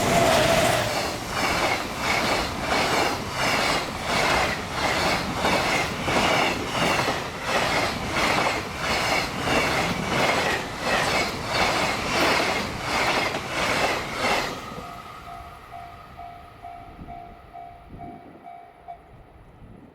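Freight train of container wagons passing at speed over a level crossing: a loud, regular clatter of wheels on the rail joints, about one and a half beats a second, that stops when the last wagon clears about 14 seconds in. The crossing's warning bell then rings on in a steady pulse and stops near the end.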